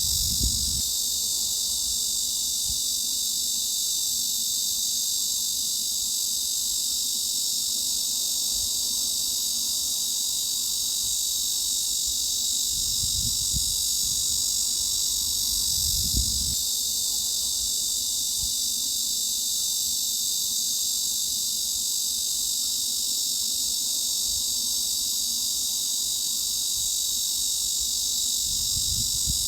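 Cicadas singing in a dense, steady, high-pitched drone that never breaks, with a few soft low bumps underneath.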